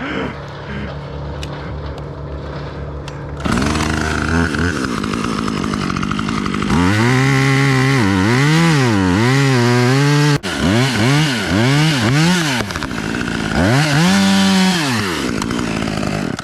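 A two-stroke chainsaw idling, then throttled up about three seconds in. Its engine pitch rises and falls over and over as the throttle is worked through a cut.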